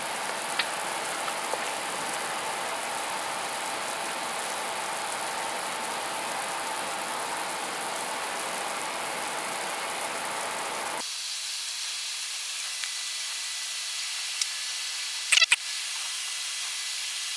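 Steady hiss of cockpit noise inside an Airbus A320 with its engines running after start. About eleven seconds in it drops suddenly to a quieter, thinner hiss, and a short sharp click comes near the end.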